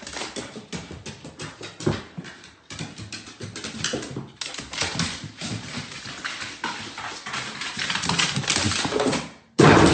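A dog's claws and paws clicking and tapping on hardwood stairs as it comes down, an irregular clatter of many small knocks.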